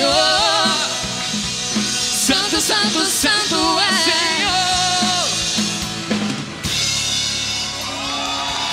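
Live gospel band ending a song: a singer holds long notes with vibrato over a drum kit with cymbal crashes, then about six and a half seconds in the band hits a final accent and the chord and cymbals ring out.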